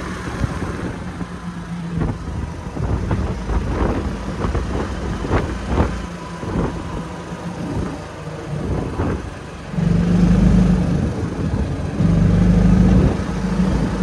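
A car running, with scattered knocks and rattles, then two louder stretches of low droning about ten and twelve seconds in.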